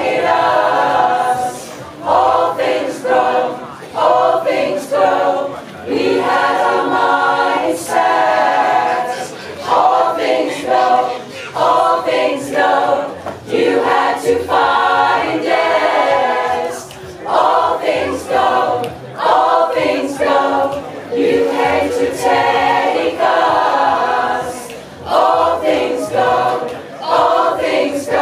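A community choir of mostly women's voices singing a cappella, in short phrases with brief gaps between them.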